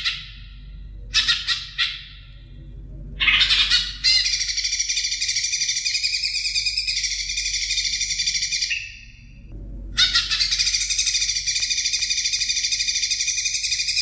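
Cucak ijo (green leafbird) singing in full voice. A few short bursts come first, then long unbroken runs of fast, rich, rippling warbling: one of several seconds from about four seconds in, a brief pause, and another starting around ten seconds.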